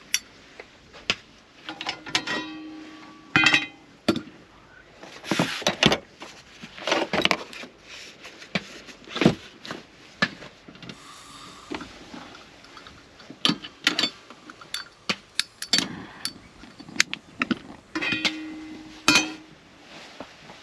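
Irregular clicks and knocks, with a short ringing tone about two seconds in and again near the end.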